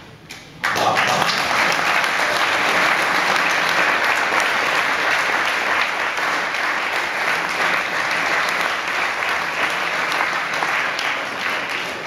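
Audience applauding, breaking out suddenly about a second in and continuing steadily.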